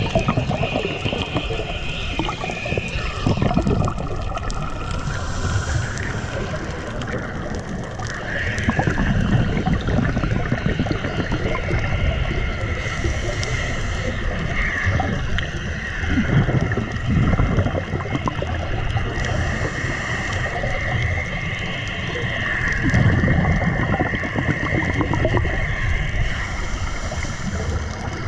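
Underwater sound picked up by a diver's camera: scuba exhaust bubbles gurgling in louder swells every several seconds over a steady low rumble of moving water.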